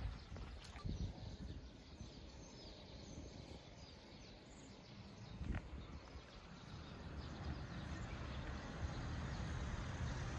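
Outdoor ambience: a steady rushing background noise that grows louder in the second half, a few soft low thumps, and a few faint bird chirps.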